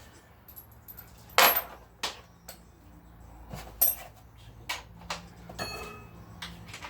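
Metal tools and motorcycle parts clinking and clattering during a strip-down: a string of sharp knocks and clinks, the loudest about a second and a half in, and a couple that ring briefly like struck steel.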